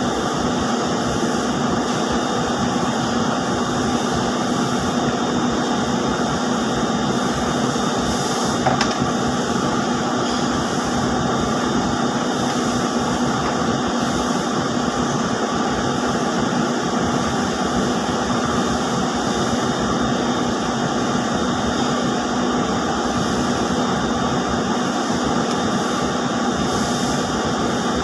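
Steady, dense drone of ring spinning frames running in a spinning mill, an even mechanical noise with a low hum and a thin high tone held throughout.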